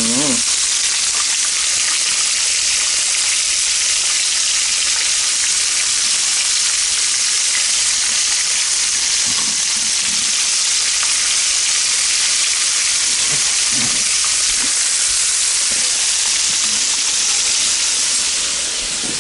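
Cornmeal-coated pieces of gator meat frying in hot grease in a cast iron pan: a steady, loud sizzle.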